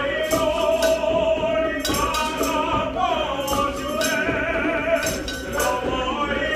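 Men's glee club choir singing sustained, slowly moving notes together, with short, sharp hand-percussion strikes over the voices.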